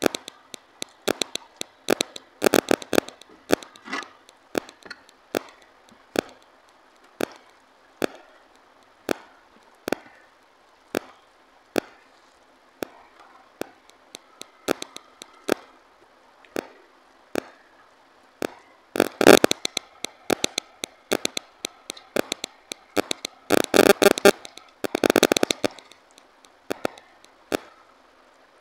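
Fingers gathering and mixing rice and dal on a steel plate, clicking and scraping against the metal in a loose run of sharp ticks. The sound thickens into two louder bursts of scraping about two-thirds of the way through and again a few seconds later.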